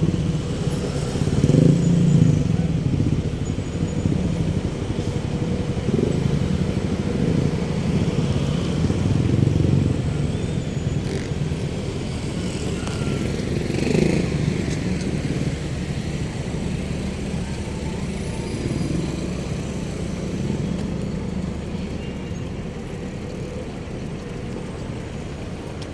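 Road traffic noise: a steady rumble of motorcycle and car engines, swelling a few times as vehicles pass close.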